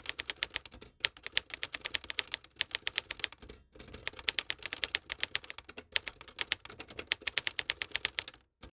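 Typewriter typing sound effect: rapid keystroke clicks, several a second, in runs broken by three short pauses, with one last click near the end.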